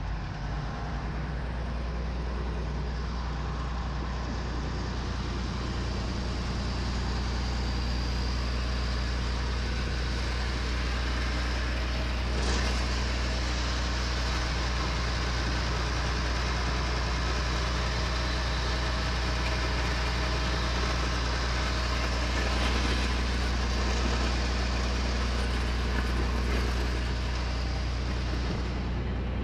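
New Holland L521 combine harvester's Fiat diesel engine running steadily, with a constant low drone and a mechanical clatter on top.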